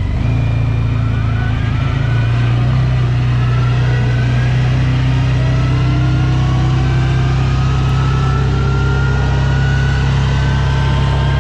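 Car engine and drivetrain heard from inside the cabin as it pulls away and gains speed: a steady low drone, with a faint whine climbing slowly in pitch from about two seconds in.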